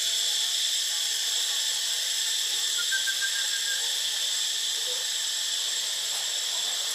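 Steady high-pitched drone of insects in the trees, with a faint short run of high chirps about three seconds in.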